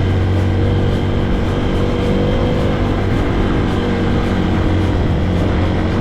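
Motorcycle engine running at a steady speed, a continuous low hum with no change in pace.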